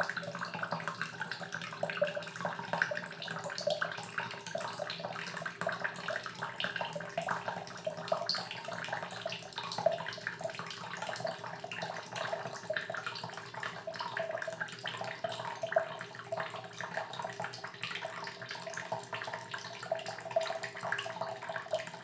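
Filtered water streaming steadily from a hand-squeezed Sawyer Squeeze filter into a plastic cup, a continuous splashing trickle as the cup fills.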